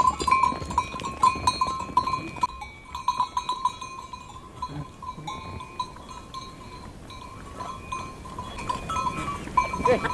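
Small bells on a flock of sheep and goats jingling on and off as the animals move, thinning out in the middle and busier again near the end.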